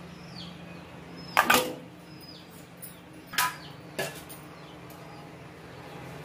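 Yam pieces and water going into a pressure cooker: three short knocks or splashes, the loudest about a second and a half in and two smaller ones near three and a half and four seconds, over a faint steady hum.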